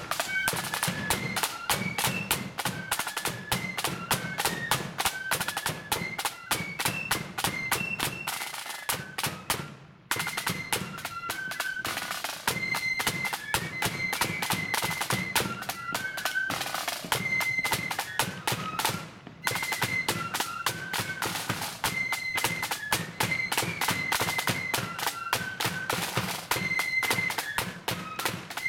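Marching flute band playing: high flutes carry the tune over rapid, continuous snare drumming and drums. The sound drops out briefly twice.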